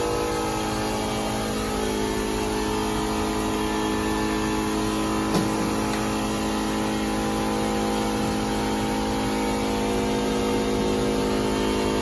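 Heidelberg buckle folding machine running steadily, an even mechanical hum of its motor and rollers, with a single click about five seconds in.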